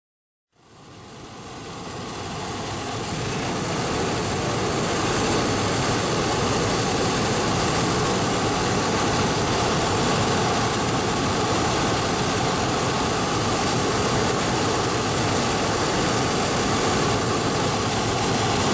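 Hot air balloon's propane burner firing, a steady loud rush that fades in over the first few seconds and cuts off suddenly at the end.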